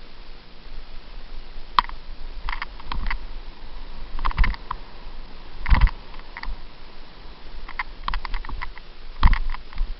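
Mountain bike clattering over bumps on a dirt singletrack: irregular rattling clicks, with heavier knocks a little over 4, near 6 and a little after 9 seconds in.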